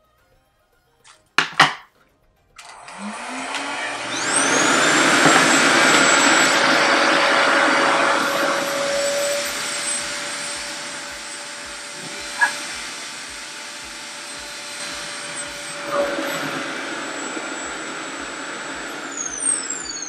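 RevAir reverse hair dryer switched on a couple of seconds in: its motor whines up to speed, then runs with a loud steady rush of air as it sucks a big section of hair into its hose wand to dry it. Near the end it winds down with a falling whine.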